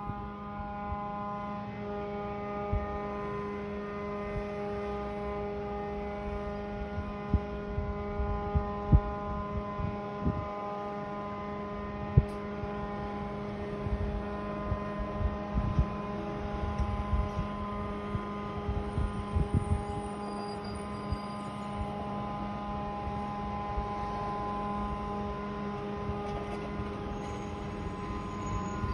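Steady droning hum with a stack of even overtones, running unchanged, with scattered low knocks and thumps underneath.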